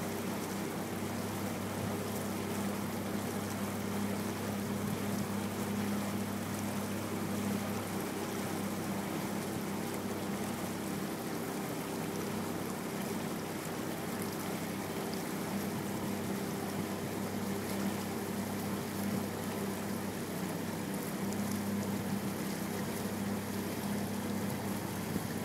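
Motorboat engine running steadily, a constant low hum, with water rushing along the hull.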